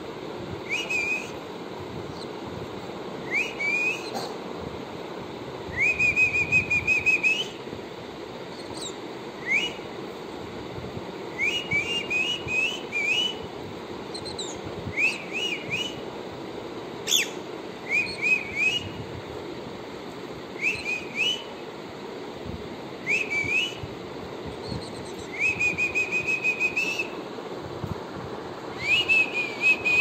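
Cockatiel whistling: a series of short high whistles, many rising sharply into a held note, some in quick runs of two or three, over a steady low hum.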